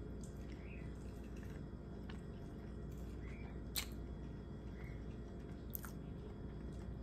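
A person chewing a soft iced cinnamon roll with the mouth closed: faint, wet chewing sounds, with a couple of sharp mouth clicks about four and six seconds in.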